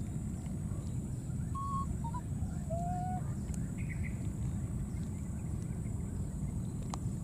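Outdoor ambience: a steady low rumble, with a few faint, short whistle-like calls about two to three seconds in.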